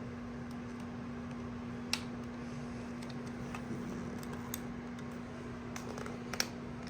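Quiet room tone with a steady low hum and a few faint, scattered clicks, the clearest about two seconds in and another near the end.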